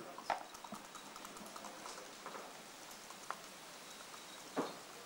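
Backgammon checkers and dice clacking on a wooden board in a few sharp, separate clicks. The loudest comes about a third of a second in and another near the end, over a steady hiss.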